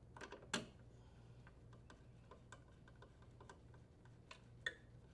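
Faint clicking and ticking of a Phillips screwdriver turning the mounting screw that fastens a small fan capacitor to a sheet-metal panel, with two sharper clicks, one about half a second in and one near the end.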